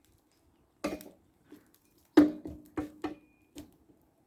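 A series of about seven sharp knocks and clacks of things being handled and set down, the loudest a little past two seconds in, with a short ring after it.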